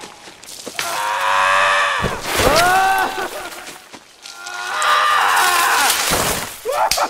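Long, drawn-out voice-like cries, three in a row, each held about a second with its pitch bending up and down.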